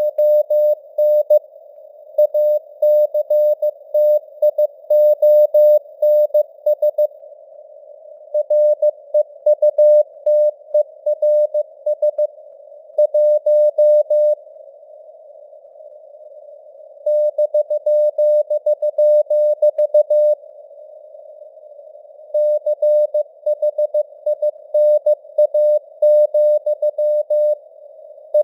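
Morse code (CW) sent at 15 words per minute as a single keyed tone of about 600 Hz over a narrow band of hiss, the simulated radio noise of a CW receiver. Several pauses of one to a few seconds leave only the hiss.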